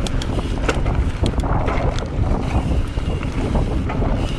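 Mountain bike riding on a dirt forest trail: wind rushing over the microphone and tyres rumbling over the ground, with scattered sharp clicks and rattles from the bike.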